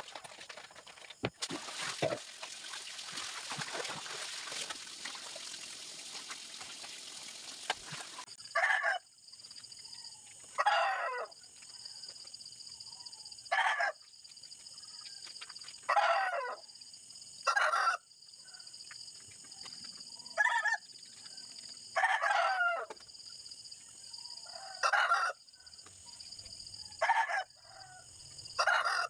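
Roosters crowing over and over, a short call about every two seconds, over a steady high whine. The first third is an even hiss.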